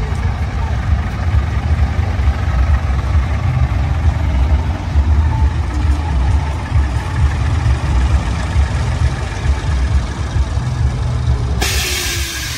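Heavy truck tractor unit's diesel engine running at low speed as it pulls slowly past, a deep steady rumble. Near the end comes a sudden loud hiss of released air from the truck's air brakes.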